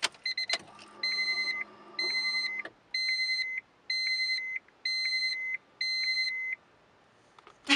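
Car warning chime beeping six times, about once a second. Right at the end comes one short, loud toot of the Honda Civic's horn, just reconnected to a new steering wheel and working.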